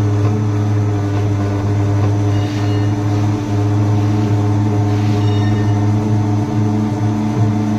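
Broaching machine running with a steady low hum.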